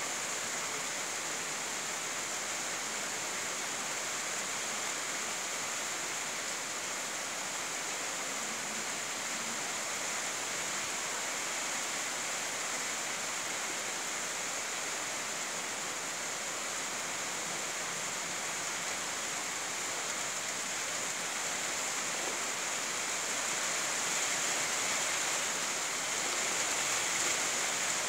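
Steady rainfall, an even hiss, a little louder in the last few seconds.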